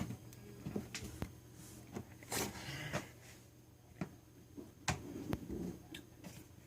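Scattered light clicks and knocks, as of small objects being handled and set down, over a faint steady hum.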